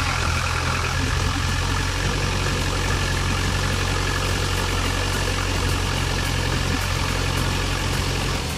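Tour boat's engine running steadily with a low drone as the boat moves along the canal, with a steady rush of water and wind beneath it.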